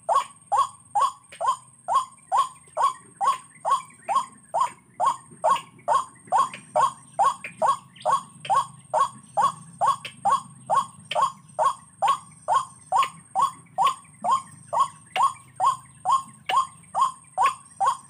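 White-breasted waterhen calling: a short falling 'kwak' note repeated evenly, about two and a half a second, without a pause.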